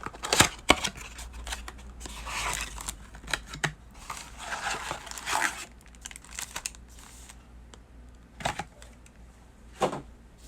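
Trading-card packaging being torn open and crinkled by hand: a few sharp clicks near the start, then bursts of tearing and rustling wrapper, with two short louder rips near the end.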